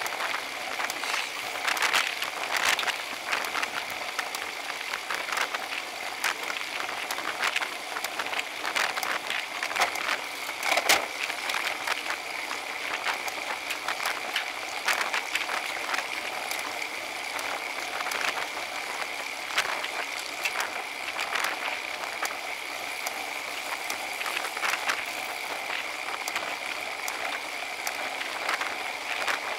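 Road bike riding at speed, heard through a camera mounted on the bike: a steady hiss of tyres and wind, broken by frequent sharp clicks and rattles, with the strongest knock about eleven seconds in. A faint steady high whine runs underneath.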